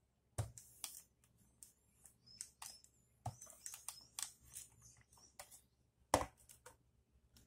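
Quiet, irregular clicks, knocks and rustles of an electric iron being pressed and shifted over folded cotton on a wooden board while a crease is set in the fabric, with a sharper knock about six seconds in as the iron is lifted away and set down.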